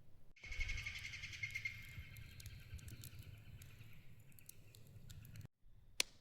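A high, rapid trilling call from a wild creature in the forest, strongest for about two seconds and then fading. Under it is a low rumble with scattered clicks.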